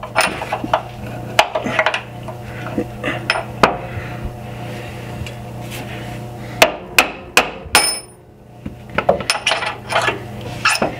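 Irregular metal taps and clanks, some ringing, from a hammer and punch knocking a new steel trailing arm into line with its frame bracket so the bolt holes meet. The strikes come in clusters, with a short pause about three-quarters of the way in.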